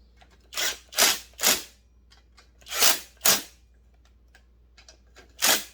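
Ratchet wrench clicking in short bursts on its back-strokes while a bolt is run in: three strokes close together, two more a moment later, and a last one near the end, with light metal ticks between them.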